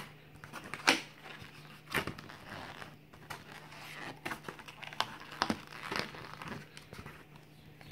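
Clear plastic packaging crinkling and crackling as it is handled: a thin plastic tray and sleeve being lifted and pulled apart, with irregular sharp crackles, the loudest about a second in and again at two seconds.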